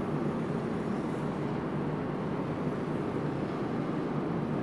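Steady low background rumble of room noise, even throughout, with no distinct events.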